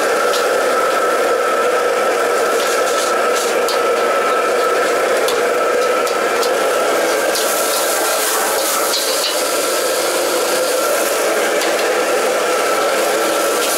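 Steady roar of a commercial wok range and its extraction, with food sizzling in the wok and a metal ladle scraping and clicking against it.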